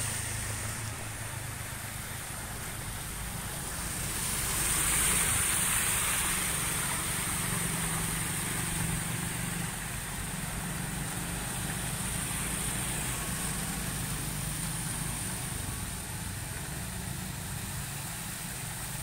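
Motor scooters and a van driving through shallow floodwater: small engines running, with the tyres swishing and splashing through the water. The sound swells about four to seven seconds in as a vehicle passes close, then settles.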